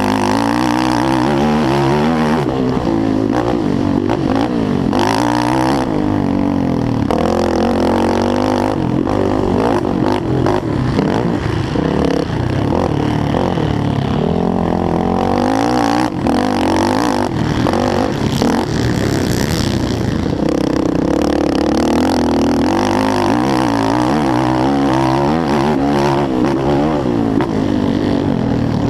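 Race quad's single-cylinder four-stroke engine, a Yamaha YFZ450R, revving up hard and backing off over and over as it shifts through the gears under race throttle.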